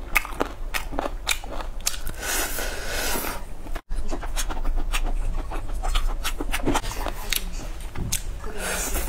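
Chewing and biting on fried skewered meat and a skewered sausage pulled off bamboo skewers, making many small clicks and crunches. The sound cuts out briefly about four seconds in.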